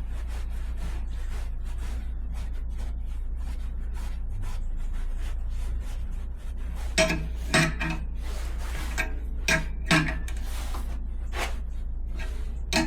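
Metal air-line fittings and tools clinking together as a threaded quick-fit coupling is screwed on, a handful of sharp ringing clinks in the second half. Under them the air compressor's motor hums steadily while it fills its tank.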